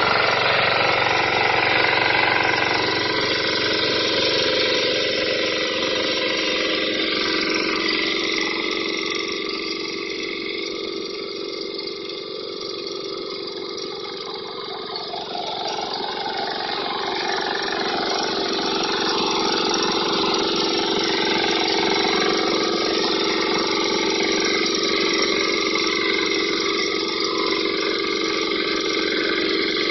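Engine of a BCS 740 two-wheel power tiller running steadily. It grows quieter for a few seconds around the middle, then louder again.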